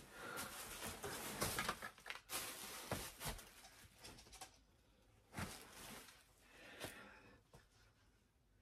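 Clothes and bags rustling as a pile on the floor is rummaged through by hand, in dense bursts for the first half, then a few brief shuffles and knocks as the handling slows.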